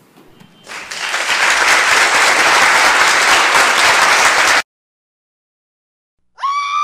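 Applause: a loud, even patter of many hands clapping that stops abruptly. Near the end, a short high-pitched tone rises and falls.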